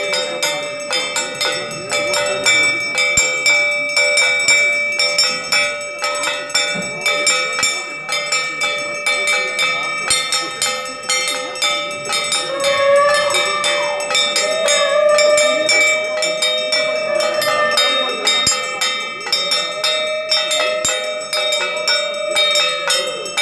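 Puja bell rung rapidly and continuously during the aarti, its steady ringing tones over quick strikes. From about halfway a longer wavering tone rises and falls over the ringing.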